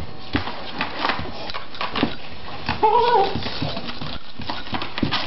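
Beagle pawing and scrabbling under a cabinet, its claws scraping and clicking against the tile floor and the cabinet base again and again, with one short whine about three seconds in.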